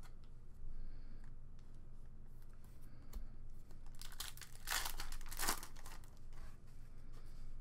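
Foil wrapper of a football card pack being torn open and crinkled by hand, a dense burst of crinkling about halfway through, with a few faint clicks before it.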